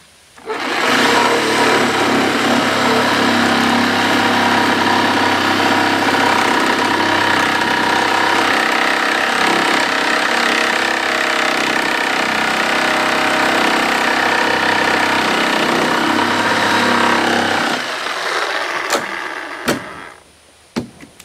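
Reciprocating saw (Sawzall) cutting through a 2x4 bottom plate. It runs steadily for about seventeen seconds, then eases off as the cut finishes and stops about twenty seconds in, followed by a few knocks.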